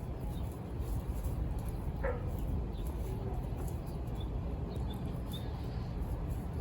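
Young chickens calling: one short call falling in pitch about two seconds in, then a few faint high chirps, over a steady low rumble.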